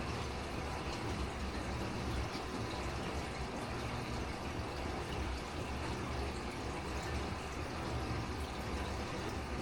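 Aquarium filter and pump keeping the tank water running steadily, a continuous trickle of water over a low hum.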